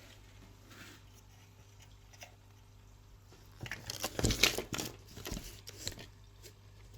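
Low steady room hum, then a little over halfway in a run of small clicks, taps and rustles from handling the candy-kit donuts and their plastic tray, loudest near the middle of the run.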